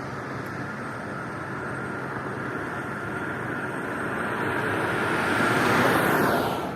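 Steady motorway traffic noise, then a vehicle on the toll road approaching and passing close by: its tyre and engine noise swells over the last few seconds and drops in pitch as it goes past near the end.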